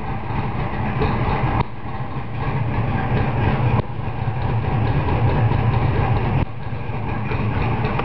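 De Tomaso Pantera's Ford V8 engine running steadily after a push-button start, heard from inside the cabin as a low, even hum.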